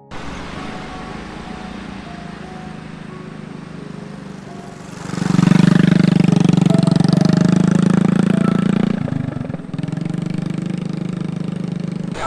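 A small engine running steadily, much louder from about five seconds in and easing off slightly after about nine seconds.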